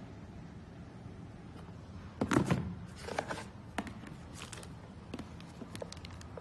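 Handling noises: a cluster of knocks and rustles about two seconds in, followed by a few scattered light clicks and taps over a low steady background hum.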